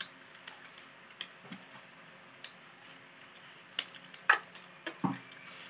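Scattered small clicks and ticks of people handling, peeling and biting into small green sour fruit with their fingers, over an otherwise quiet room.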